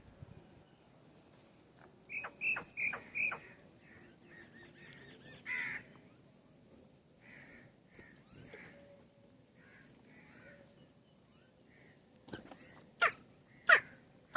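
Birds calling at a feeder: a quick run of four short calls about two seconds in, softer scattered calls through the middle, and several sharp, loud, very short calls or clicks near the end.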